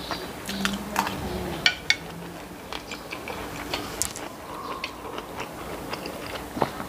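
Close-miked chewing of a mouthful of rice and stir-fried meatballs: wet mouth clicks and small crunches at an uneven pace, with a brief low hum near the start.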